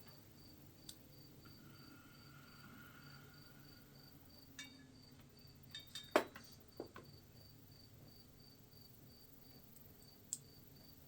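Scattered small clicks and knocks of parts and wires being handled, the loudest a sharp knock about six seconds in. Under them is a steady high chirp repeating about three times a second, typical of a cricket.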